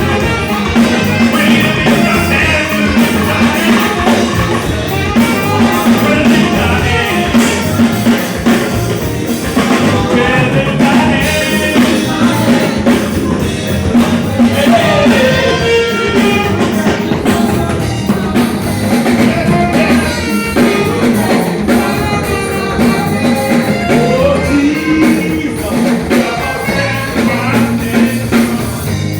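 A live band playing during a sound check: drum kit, guitar and a singing voice over a steady beat.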